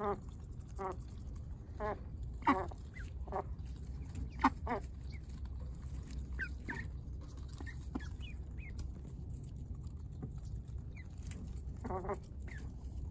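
Ducks quacking, short calls repeated through the first few seconds and again near the end, with ducklings peeping faintly in between.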